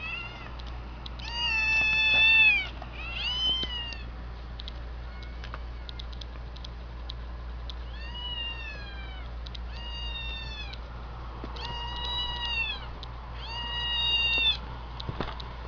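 Recorded kittens meowing through a laptop speaker: about seven high-pitched meows at uneven intervals, several dropping in pitch at the end, over a steady low hum.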